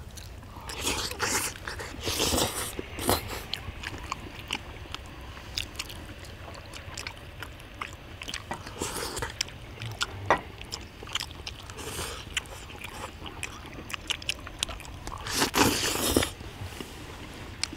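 Close-up eating sounds of people chewing and slurping chewy rice cakes and pork in black bean sauce, with small clicks scattered throughout. The loudest stretch of eating comes near the end.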